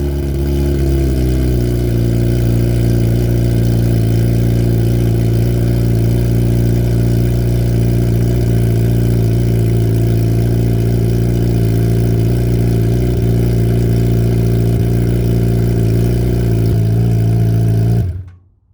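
Kawasaki ZX-10R's inline-four idling with no exhaust or catalytic converter fitted, running straight out of the open header pipes; too loud. The idle settles over the first couple of seconds, holds steady, then cuts off suddenly near the end when the engine is switched off.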